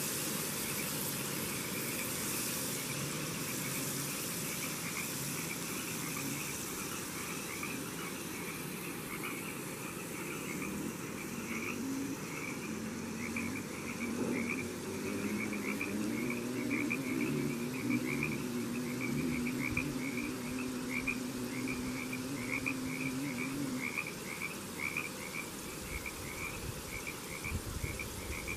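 A chorus of frogs calling, short croaks repeating at about two a second, with a faint low drone in the middle.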